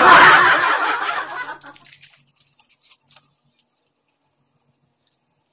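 Metallized plastic snack-cake wrapper crinkling as it is torn open by hand. The rustle is loud at first and dies away within about two seconds.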